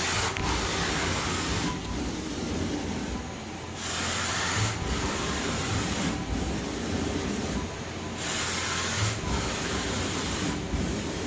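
Samsung SL2500BY CNC lathe running its axes back and forth at full rapid traverse while the spindle turns at 1,000 RPM: a hissing mechanical whir that swells and drops as each rapid move starts and stops, about every two seconds.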